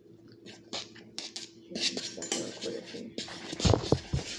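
A utensil scraping and clinking against a mixing bowl as batter is stirred, irregular and getting busier partway through. There are a few heavy thumps near the end.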